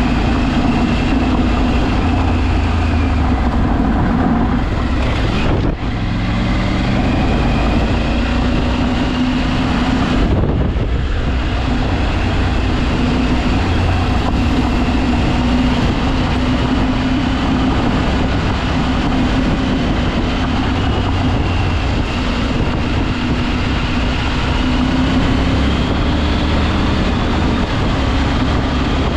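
A vehicle engine running steadily while driving, with a brief drop in level about six seconds in.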